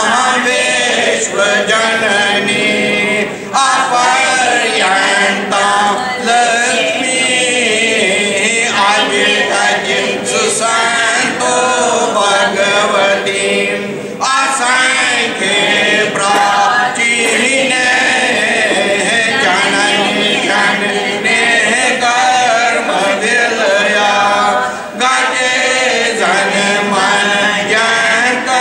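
A mixed group of men and women singing a chant together in unison, without instruments, with brief pauses between lines.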